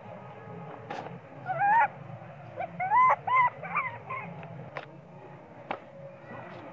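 Baby macaque crying: one high, wavering cry about one and a half seconds in, then a run of three or four short cries a second later. It is a hungry infant crying to its mother for milk.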